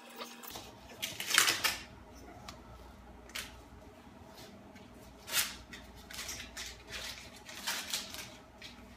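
Hand-work sounds: blue painter's tape pulled off the roll in short ripping strips, with rustling and light knocks of the tape and metal straightedge on the plastic bumper cover. The loudest rip comes about a second in, with several shorter ones later.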